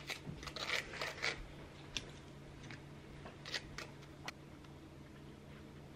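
A knife scraping peanut butter across a crisp puffed rice cake: a quick run of dry scratchy strokes at the start, then a few scattered scrapes and clicks that stop about four and a half seconds in.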